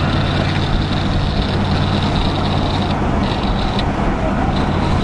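Large diesel engine of a fire engine running steadily at the scene, with a steady high-pitched whine over it that briefly cuts out a few times in the second half.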